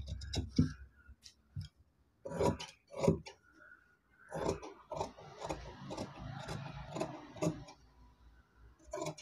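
Large tailor's shears cutting through cloth on a table: a few separate snips in the first three seconds, then a longer stretch of continuous cutting, and one last snip near the end.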